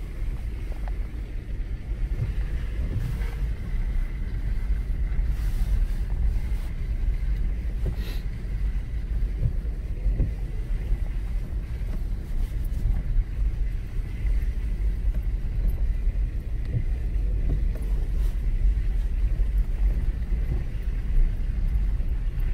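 A car driving at a steady pace: a continuous low rumble of engine and tyres, with a few faint knocks.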